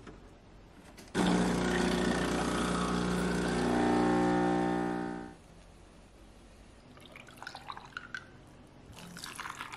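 Gevi espresso machine's pump running with a steady hum as it pulls a shot, starting about a second in and cutting off about five seconds in. Near the end, faint pouring of milk into a glass.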